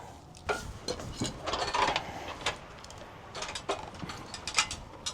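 Irregular light clicks, rattles and scrapes of a gutter with its clip-on gutter guard being handled and lifted.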